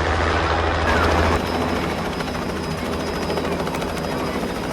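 Helicopter running nearby: a steady, continuous rotor thrum.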